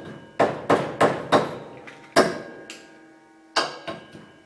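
Hammer blows on metal: about seven sharp strikes, four in quick succession in the first second and a half and then a few more spaced out. Each leaves a short metallic ring.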